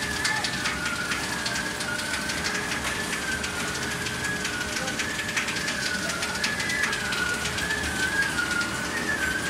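Polycarbonate corrugated roofing sheet extrusion line running: a steady high whine that wavers slightly in pitch, over a constant mechanical rumble with fast, faint ticking.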